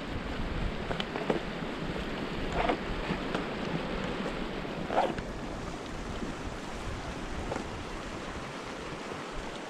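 Wind rushing and buffeting the microphone, with a few faint knocks or scuffs, the loudest about five seconds in.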